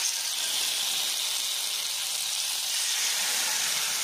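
Masala-marinated chicken pieces sizzling in hot coconut oil on a flat nonstick tawa as they are laid in; a steady, high hiss.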